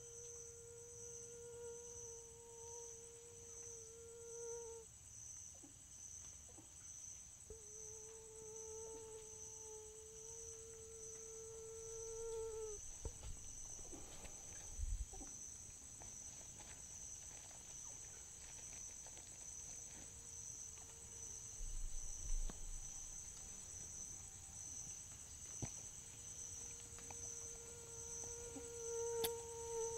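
Rainforest insects shrilling steadily in a high-pitched, finely pulsing drone. A lower humming note is held for about five seconds at a time: twice in the first half and again near the end.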